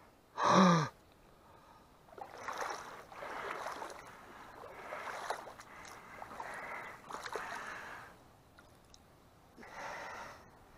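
A person's short vocal grunt about half a second in, then a run of breathy, rustling noises that swell and fade, with one more near the end.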